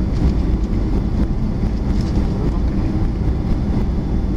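Cabin noise inside a Boeing 737-400 taxiing, its CFM56 engines at low taxi power: a steady low rumble with no breaks.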